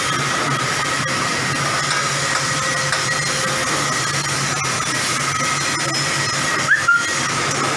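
Panasonic robotic arc welder running: a steady hissing, frying noise over a constant hum, with a short sharp chirp about seven seconds in.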